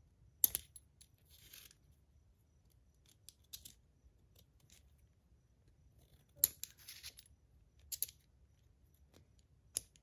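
Sharp metallic clicks and snaps from the segmented aluminum shell of a PillBug fidget toy being folded and turned in the fingers. The four clearest clicks come about half a second in, at about six and a half and eight seconds, and just before the end, with a few softer ticks in between and brief scraping after the first two.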